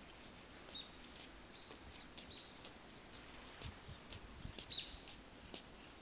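Dry fallen leaves rustling in short, quick flicks as a pale thrush tosses leaf litter aside while foraging, with a few short high chirps from a bird, the loudest nearly five seconds in.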